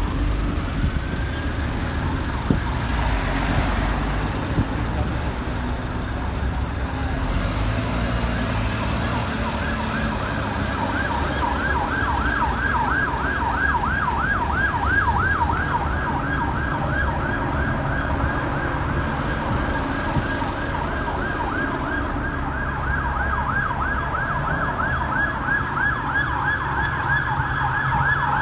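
Emergency vehicle siren in a fast yelp, sweeping up and down about three times a second from about ten seconds in and growing louder near the end, over the low running of diesel bus engines.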